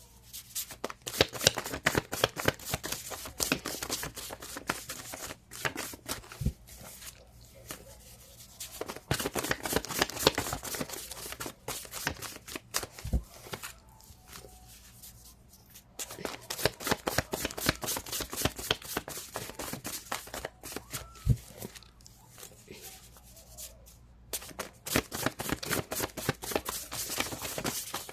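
A deck of tarot cards being shuffled by hand: rapid runs of soft clicking and riffling in several long spells, with short pauses between them.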